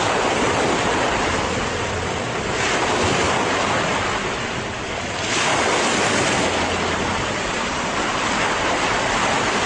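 Ocean waves breaking on a beach: a steady rush of surf that swells as waves come in, about two and a half seconds in and again around the middle.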